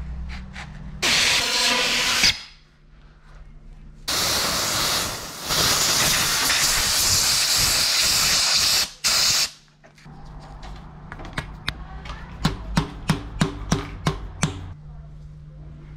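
Spray from a long thin nozzle pushed under a bicycle handlebar grip, hissing in two bursts: a short one about a second in, then a long one of about five seconds. This loosens the grip so it can slide off. Near the end comes a quick run of about a dozen sharp clicks.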